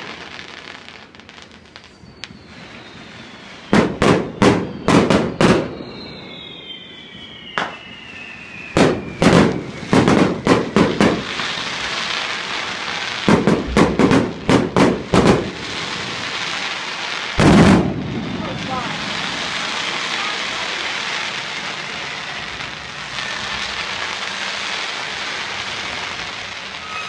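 Fireworks going off, with runs of sharp bangs in quick succession and one especially loud boom about two thirds through. A couple of whistles slide down in pitch during the first several seconds, and a steady crackling hiss of burning sparks fills the second half.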